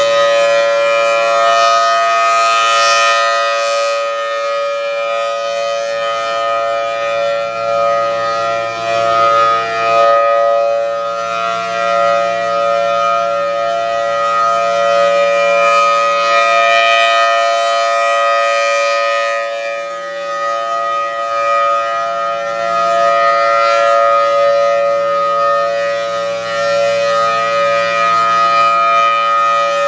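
Federal Thunderbolt 1003 outdoor warning siren sounding a steady, very loud tone during a test. Its loudness swells and fades about every seven seconds as the rotating horn sweeps toward and away.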